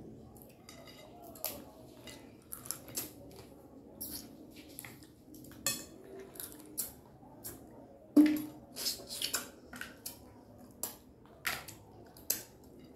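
A fork clinking and scraping on a plate in irregular clicks and taps during a meal, the loudest clink about eight seconds in.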